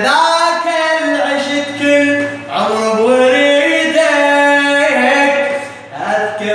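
A man singing solo in long, drawn-out, ornamented phrases, in the manner of an Iraqi Shia lament chanter (radood). He breaks for breath about two and a half seconds in and again near the end.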